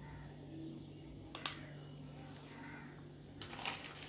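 Quiet kitchen background: a steady low hum, with one light click about a second and a half in and a few faint knocks near the end. The thin pour of castor oil into the simmering dal makes no clear sound of its own.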